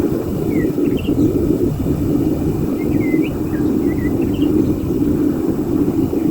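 Home foundry furnace running with a steady low rumble while it heats a crucible of copper pipe to melting. Small birds chirp briefly a few times over it.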